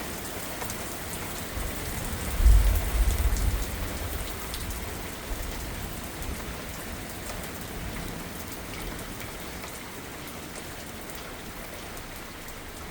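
Steady heavy rain from a severe thunderstorm, with a brief low rumble about two and a half seconds in that fades over a second or two.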